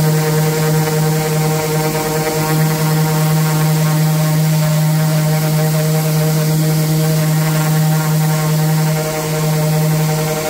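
Random orbital sander running with a steady buzzing hum, its 80-grit pad sanding dark spray paint off a carved MDF panel. The hum dips briefly about nine seconds in.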